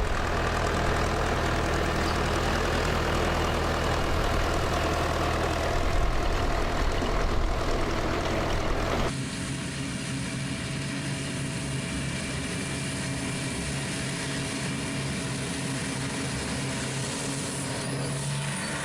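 Engines of heavy farm machinery running steadily. About nine seconds in the sound changes abruptly to a different, slightly quieter engine.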